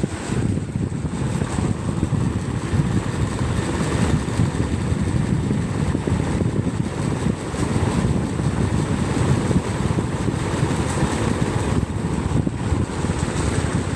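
Atomberg electric fan running, its airflow buffeting the microphone as a steady, fluttering low rumble, with a faint high-pitched whine held throughout. This is the noise presented as the fan's noise problem.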